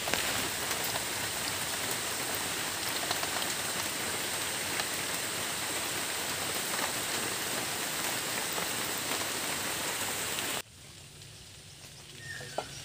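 Steady rain falling on trees and foliage: a dense hiss with scattered drop hits. It cuts off suddenly about ten and a half seconds in, leaving a much quieter background.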